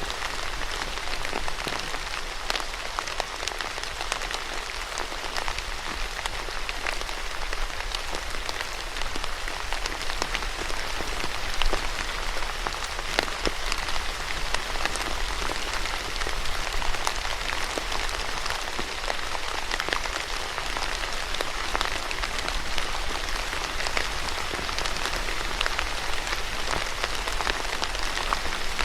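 Steady rain falling and pattering on a surface, a dense even hiss with many individual drops ticking through it.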